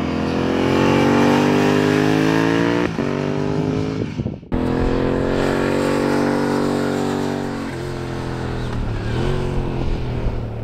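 Turbocharged Yamaha R7's parallel-twin engine running hard on track, its pitch climbing with a short break about three seconds in. The sound cuts off abruptly about four and a half seconds in and comes back at high revs, then the pitch falls away as the throttle eases off near the end.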